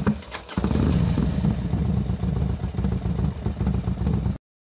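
A few sharp clicks, then an engine running with a loud, fast-pulsing low rumble from about half a second in, cutting off abruptly near the end.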